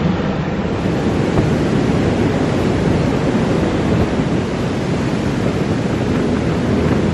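Rough sea surf breaking, a loud, steady rushing noise.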